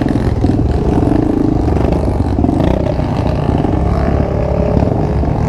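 Honda XR250 Tornado's single-cylinder four-stroke engine running on the trail through its new Power Core 2 aftermarket exhaust, its pitch rising and falling a little with the throttle.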